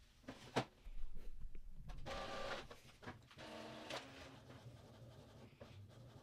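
Epson WorkForce WF-2960 inkjet printer running a nozzle check print: a click, then the faint whirring of its motors, with short pitched whines around two and three and a half seconds in, settling into a lower steady hum.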